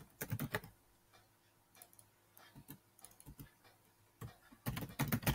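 Computer keyboard keys clicking as text is typed: a short run of keystrokes at the start, a few scattered light taps, then a denser run from about four seconds in.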